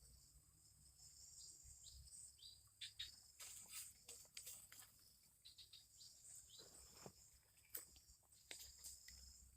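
Faint, steady high-pitched insect drone, with scattered short chirps and clicks.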